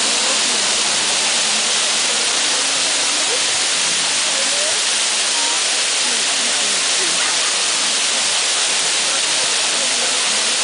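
Fountain water jets spraying and falling back, a steady dense hiss of splashing water.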